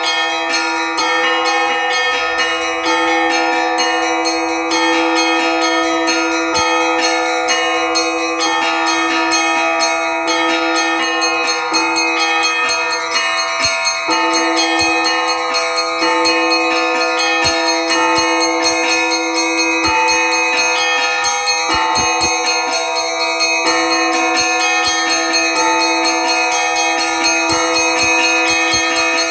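Orthodox church bells rung together in a continuous peal. Small high bells are struck in a quick, repeating pattern over the steady hum of the larger bells ringing on.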